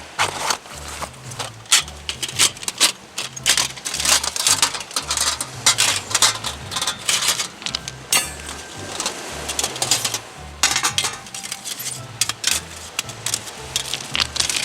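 Repeated metallic clinks and clatter as a Captain Stag fire stand is handled and set up. Background music with a steady bass line runs underneath.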